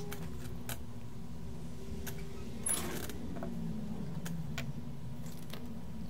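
Scattered faint clicks and light taps of soldering tools working the solder pads on a circuit board, over a steady low hum.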